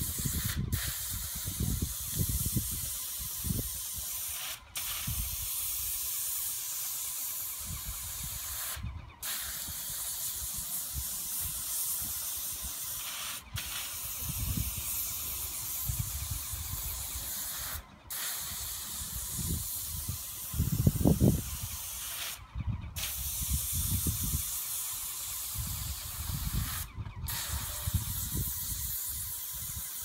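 Airless paint spray gun hissing in long passes across a garage door. The spray stops for a split second every four to five seconds as the trigger is released between strokes. Low rumbles come and go underneath, the loudest about two-thirds of the way through.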